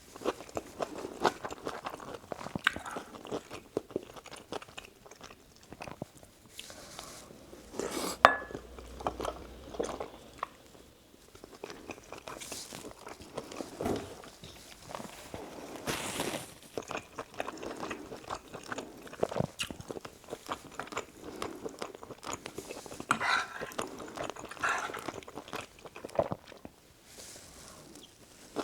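Close-miked chewing and biting of spicy dakgalbi chicken and rice: a dense run of irregular wet mouth clicks and bites, with one sharp click about eight seconds in that rings briefly.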